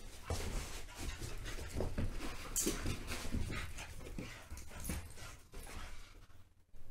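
Two Staffordshire Bull Terriers play-fighting, with dog noises and paws scuffling on a rug in a quick, irregular jumble of short sounds.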